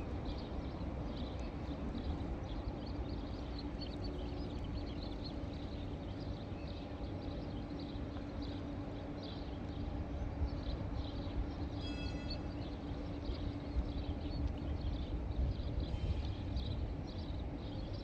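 Gulls calling from their nesting building: many short, high calls repeat over a steady low hum and rumble. One louder call stands out about two-thirds of the way through.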